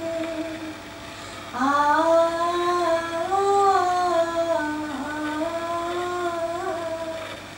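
A woman's solo voice singing a naat with no instruments. A held note fades out under a second in, then a long, slowly wavering melodic phrase runs from about one and a half seconds in until shortly before the end.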